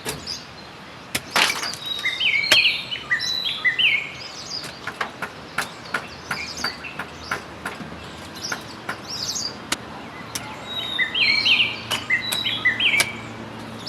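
A songbird singing two bursts of quick chirping phrases, about two seconds in and again near the end, over a run of short sharp knocks from a hand hoe chopping into the soil as the ground is tilled.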